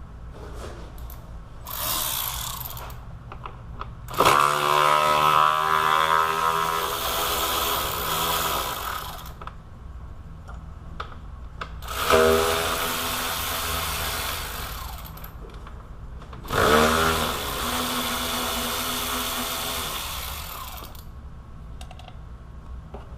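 Handheld power tool with a 10 mm socket running, spinning out the condenser fan bolts. A short burst comes about two seconds in, then three runs of several seconds each, each winding up in pitch as it starts.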